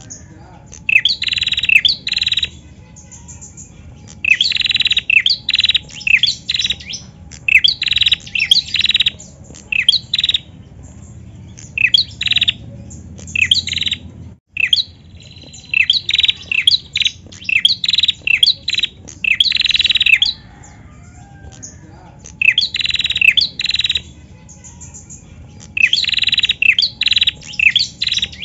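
Caged female prenjak calling persistently: quick runs of sharp, high chirps, each run lasting a second or two, repeated after short pauses.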